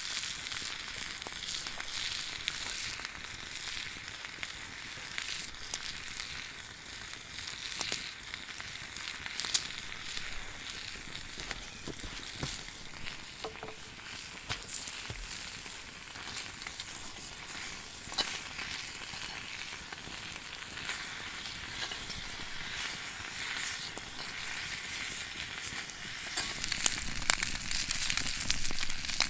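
Food frying in a pan, a steady sizzle with many small pops and crackles, growing louder near the end.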